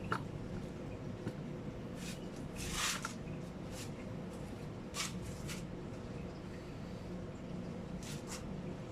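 Scattered light clicks and knocks from hardware being handled while a motorcycle top box and its mounting plate are fitted, with one short scrape about three seconds in, over a steady low hum.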